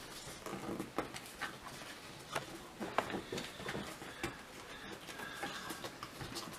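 Cardboard tabs being folded up and pressed down by hand: faint, scattered light taps and crinkles of card.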